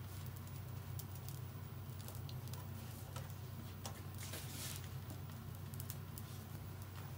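Yaki-manju being grilled and handled: faint clicks and light crackling over a steady low hum, with a brief hiss about four and a half seconds in.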